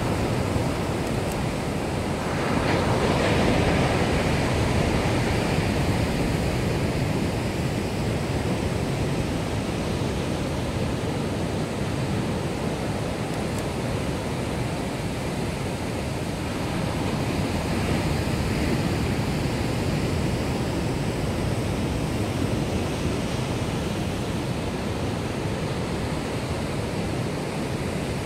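Atlantic surf breaking on black volcanic rocks: a continuous rush of crashing waves and churning foam. It swells louder as a big wave breaks about three seconds in, and again more gently around eighteen seconds.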